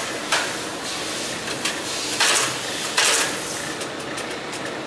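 Graphotype embossing machine stamping characters into a metal address plate: a few sharp metallic clanks at irregular intervals.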